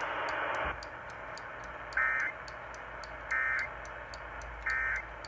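Emergency Alert System end-of-message signal: three short bursts of two-tone digital data chirps, each about a third of a second long, spaced a little over a second apart. They are heard over radio static with faint regular ticking, and a louder burst of hiss opens the sequence.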